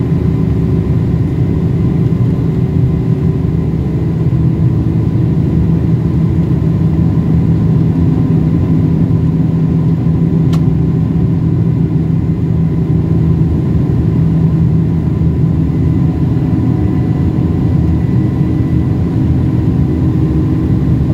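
Cabin noise of a Boeing 747-400 climbing after takeoff: a loud, steady rush of airflow and engine noise from its four General Electric CF6 turbofans, with a faint steady whine. There is a single brief click about halfway through.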